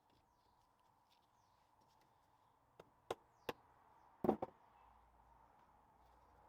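A few sharp knocks and taps from differential parts and tools being handled while the gears are fitted, the loudest a quick double knock about four seconds in.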